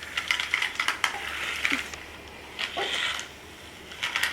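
Plastic magnetic tile toy pieces clicking and clattering as they are handled, in quick clusters of knocks with short pauses between.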